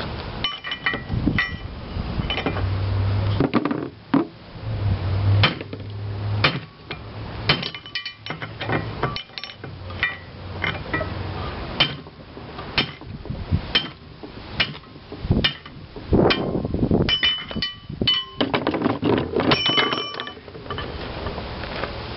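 Repeated metal-on-metal blows, irregularly spaced, each with a short clinking ring, from a gib key puller working a rusted-in gib key out of the cast iron flywheel hub of a 1927 McCormick-Deering 1½ hp Type M engine.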